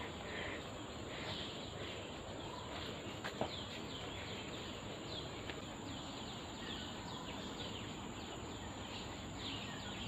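Faint tropical forest ambience: many short, high, falling chirps from wildlife keep repeating over a steady hiss, with a couple of small clicks a little after three seconds in.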